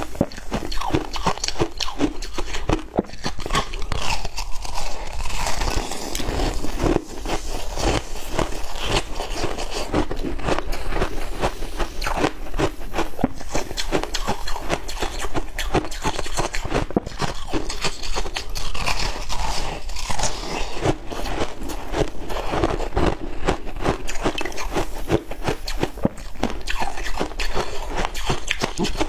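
Close-miked crunching and chewing of cola-dipped ice: a dense, unbroken stream of crisp bites and crunches.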